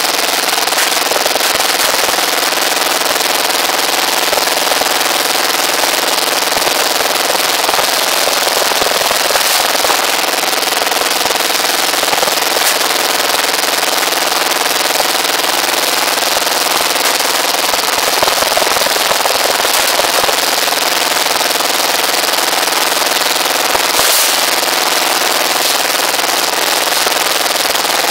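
Small engine powering a rebar bending machine, running steadily with a rapid rattling beat. A couple of brief metal clanks come as the steel rebar is bent.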